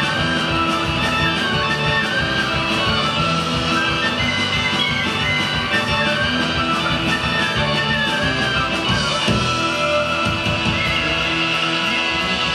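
A band playing a Breton instrumental tune: a melody line moving above a guitar accompaniment.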